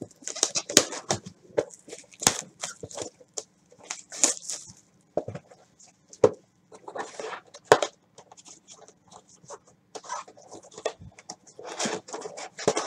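Cardboard trading-card hobby box being handled and opened by hand: a string of short scrapes, taps and crinkly rustles of cardboard and wrapping.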